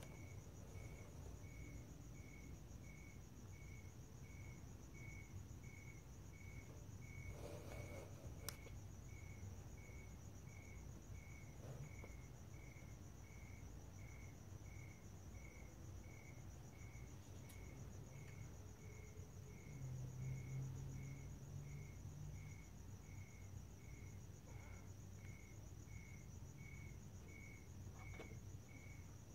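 Faint crickets chirping: a steady high chirp repeats about twice a second over a continuous higher trill.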